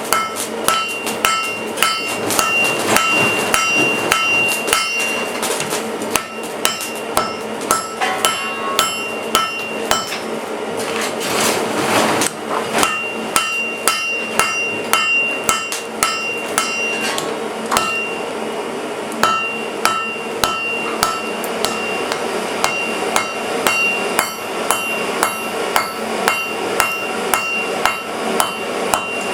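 Hand hammer forging hot steel on an anvil, with blows coming about twice a second and the anvil ringing between them. There is a brief break in the rhythm near the middle.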